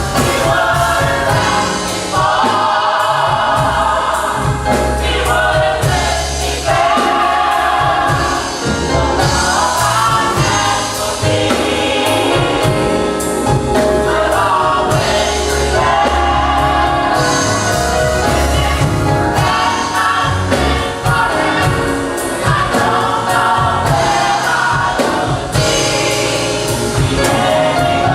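Gospel choir singing in full harmony over a band, with a heavy bass line and a steady drum beat.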